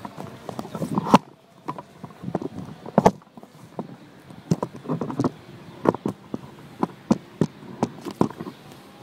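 Irregular clicks and knocks of a handheld camera being moved and repositioned close to the bike, with the loudest knocks about one and three seconds in.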